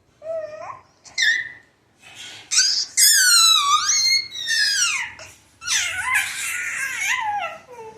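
A baby's high-pitched squeals: two short calls, then longer, louder shrieks from about two and a half seconds in that slide down in pitch.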